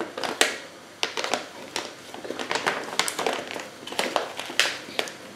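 Plastic bag crinkling in the hands as cetearyl alcohol flakes are shaken out of it into a bowl, in irregular clicks and rustles.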